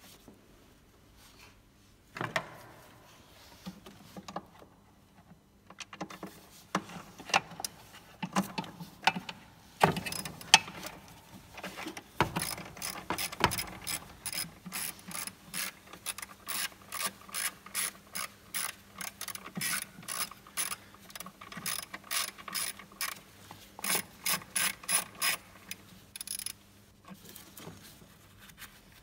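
Ratchet wrench clicking in quick, even strokes, about four clicks a second, as a bolt is turned at the diesel fuel filter housing. Before that come scattered knocks and clicks of tools being handled.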